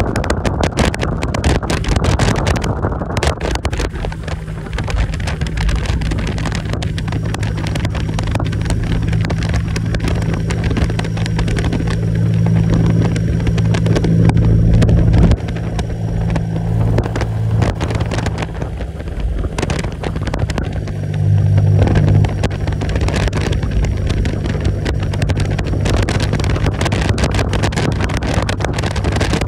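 Motorcycle engine running at road speed, heard from the rider's seat with wind noise on the microphone. The engine note grows louder until about halfway through, drops off suddenly, and swells again briefly a few seconds later.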